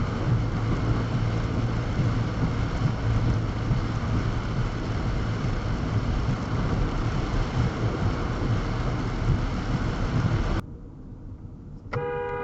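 Car driving on a rain-soaked road: steady tyre hiss over a low rumble, with rain on the car, which cuts off abruptly; near the end a car horn starts a steady honk.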